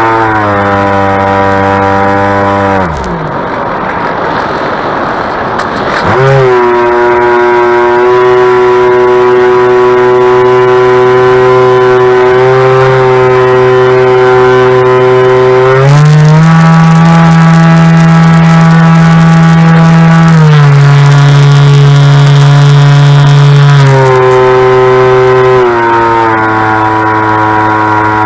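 Electric motor and propeller of a Bixler 2 RC glider running, heard from an onboard camera: a steady whine that winds down about three seconds in, leaving a rush of air, then comes back and steps up and down in pitch several times as the throttle changes.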